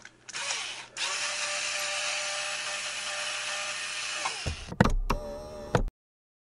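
Logo intro sound effect: a steady power-tool-like mechanical whir for about three and a half seconds, then two sharp hits with a deep bass boom, cutting off suddenly.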